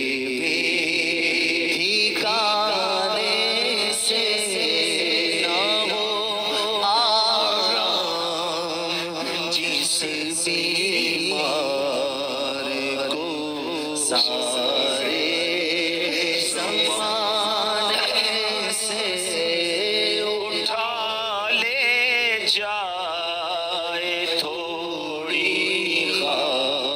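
A man singing a naat, an Urdu devotional poem, into a microphone: a slow, ornamented melody with long wavering held notes.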